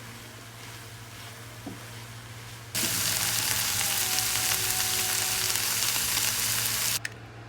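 Food frying in hot oil in a pan, a loud sizzle that starts suddenly about three seconds in and cuts off sharply about a second before the end. Before it there is only a low steady hum and faint kitchen noise.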